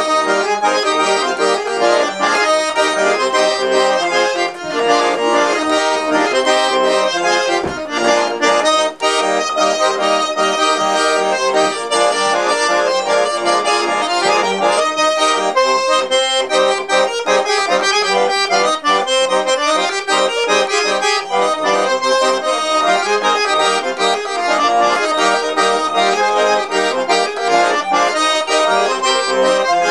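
Russian garmon button accordion playing a polka: a melody over a steady, rhythmic bass-and-chord accompaniment.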